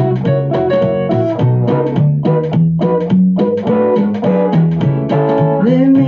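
Instrumental passage of a live song: a guitar picking a busy line of notes over keyboard accompaniment with a steady bass line.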